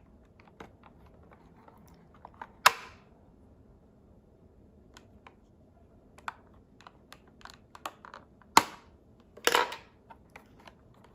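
Hands handling and opening a boxed doll's packaging: scattered light clicks and taps, two sharp snaps about three and eight and a half seconds in, and a brief rustle just after the second snap.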